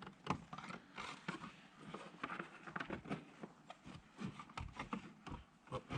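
Scattered small scrapes, rustles and light knocks of gear being handled and stowed in the storage behind a kayak seat.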